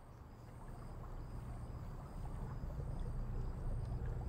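Low, steady rumbling drone that swells gradually louder: the dark ambient sound at the start of a short horror film's soundtrack.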